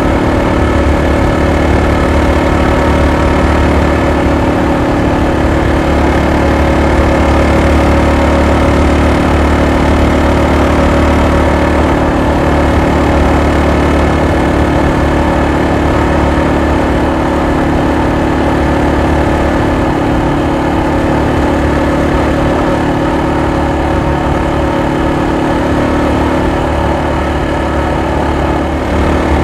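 Yamaha XT225 Serow's single-cylinder four-stroke engine running at a steady cruising speed while the bike is ridden, its note holding even throughout.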